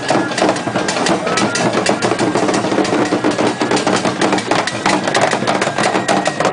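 Akan ceremonial drums, a pair of atumpan talking drums and tall fontomfrom drums, beaten in a fast, dense rhythm of many strokes.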